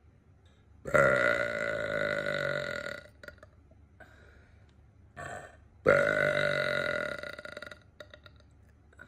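A young woman's deliberate air burps: two long, loud, pitched belches of about two seconds each, the first starting abruptly about a second in and the second about five seconds later.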